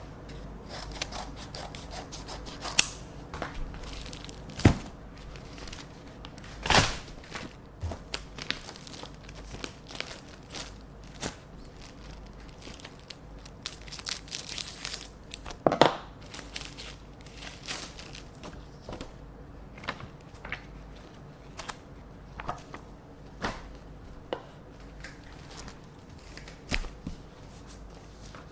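Paper envelopes being opened with scissors: blade snips, paper tearing and crinkling as letters are handled, a run of sharp clicks and rustles with a few louder snaps scattered through.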